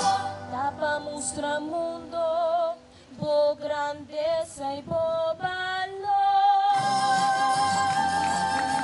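A woman singing solo into a microphone with backing music. For several seconds the accompaniment thins out and her voice carries the melody almost alone, with vibrato. About two-thirds of the way in, the full backing comes back in as she holds one long note.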